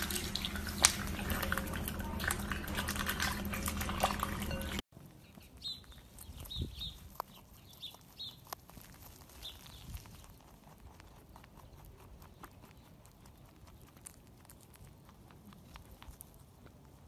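Duckling dabbling in a bowl of water and peas: rapid wet clicking, slurping and splashing of its bill. After about five seconds this cuts off abruptly to much quieter sound of a rabbit chewing grass, with faint crunching clicks and a few short high chirps soon after the cut.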